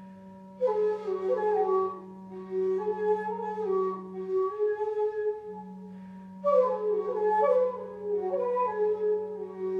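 Two end-blown flutes, one of them a long wooden recorder, playing a duet. One holds a steady low drone that breaks off for about a second halfway through, while the other plays short, sliding melodic phrases above it.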